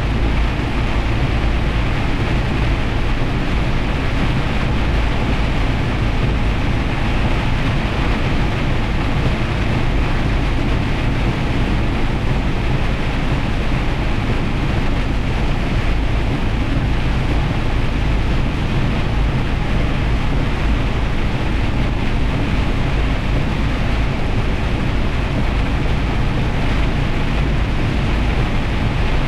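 Semi truck driving through heavy rain: a steady rush of engine drone, tyres on the wet road and rain on the truck, with no change throughout.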